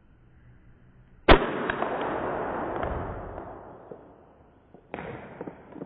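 A plastic toy pistol fires a ball bullet with one sharp snap about a second in, followed by a hiss with small ticks that fades out over about three seconds. A second, quieter noise starts near the end.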